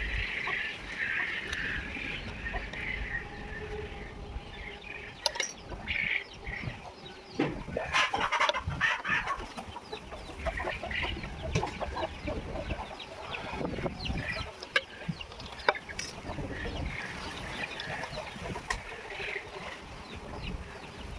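Chickens clucking on and off, with a few sharp knocks in the middle of the stretch.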